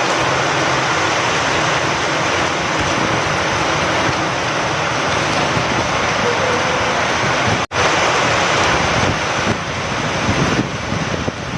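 Steady rain falling, with wind, as a dense even hiss. It cuts out for an instant about two-thirds of the way through, then carries on.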